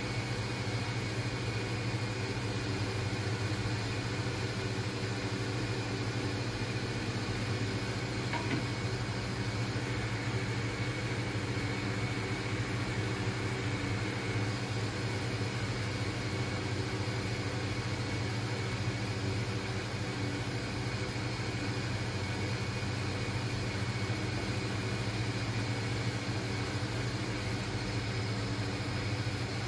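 A steady machine hum, even in level throughout, with a faint knock about eight seconds in.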